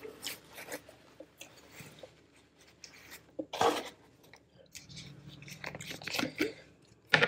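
Close-miked chewing with small wet mouth noises and scattered light clicks. A paper napkin rustles early on, and near the end a plastic water-bottle cap is worked open.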